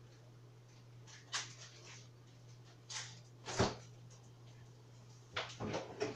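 A refrigerator door being opened, followed by a series of sharp knocks and clatters as items inside are handled, with the loudest knock about halfway through and a quick run of them near the end, over a steady low hum.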